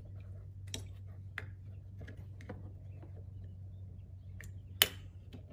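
Light plastic clicks and taps as fingers pry at the plastic cap over a windshield wiper arm's retaining nut, with one sharper, louder click near the end. A steady low hum runs underneath.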